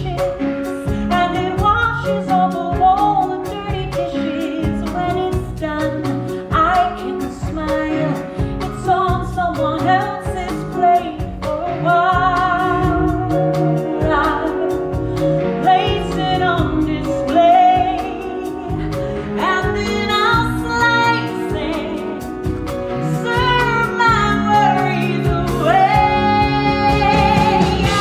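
A woman singing a musical-theatre song, backed by a live band with a steady beat; her voice climbs to its strongest, sustained notes near the end.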